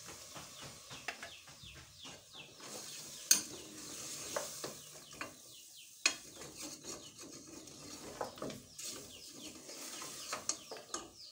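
Metal spoon stirring and scraping goat trotters (paya) in masala inside a steel pressure-cooker pot, over a faint sizzle of frying. Two sharp clanks of the spoon against the pot, about three and six seconds in, are the loudest sounds.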